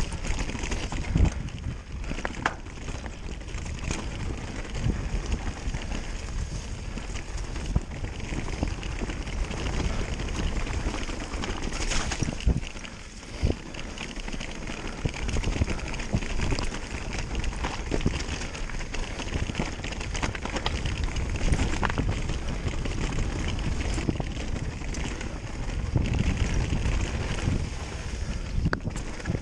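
Specialized Turbo Levo electric mountain bike descending rocky singletrack: tyres rolling over rock and dry leaves, with frequent short knocks and rattles from the bike over bumps, and wind on the microphone.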